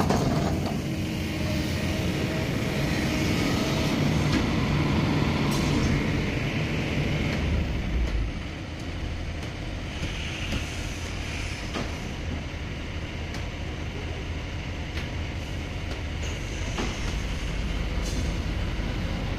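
Kobelco SK210 hydraulic excavator's diesel engine running under load as it digs and swings, with hydraulic whine and a few sharp knocks; it eases off slightly about eight seconds in.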